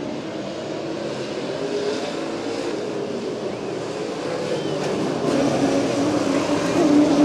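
A pack of late model stock cars' V8 engines running at racing speed around the oval, a steady, layered drone that grows louder about five seconds in as cars come close.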